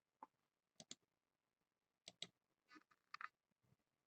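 Faint computer mouse clicks, a few scattered, several in quick pairs like double-clicks, over near silence.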